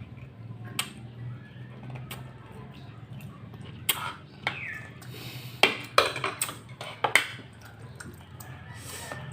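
Eating utensils clinking and scraping on dishes during a meal: scattered sharp clinks, coming thick and loudest in the middle seconds, over a low steady hum.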